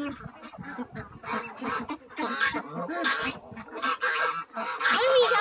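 A flock of domestic geese and ducks calling over one another while they feed, many short overlapping calls that grow busier and louder after about two seconds.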